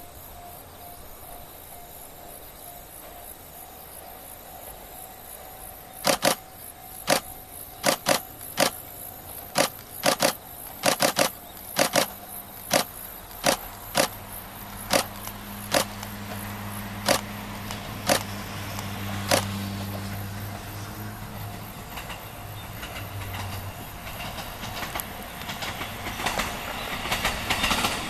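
A Tadami Line KiHa diesel railcar approaching across the fields: a low engine hum swells from the middle of the clip and then fades, and rail and wheel noise grows near the end. Over it, from about six to nineteen seconds in, comes a string of sharp single clicks, some in quick pairs and the loudest thing heard, like a camera shutter firing.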